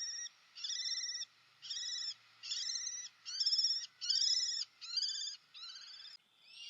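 Kestrel calling: a run of trilled notes, each about half a second long, repeated a little more than once a second and fading near the end.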